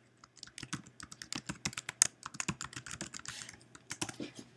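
Typing on a computer keyboard: a quick, uneven run of key clicks as an email address and password are entered.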